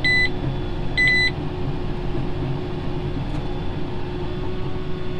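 John Deere 7730 tractor's six-cylinder diesel running steadily while pulling a round baler through the windrow, heard from the cab. A monitor beeps at the start and twice more about a second in.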